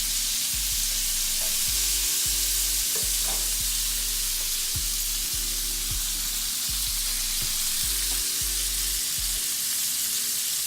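Onions and bacon fat sizzling hard in a frying pan as chopped cabbage goes in and is stirred, with a few short knocks of the utensil against the pan.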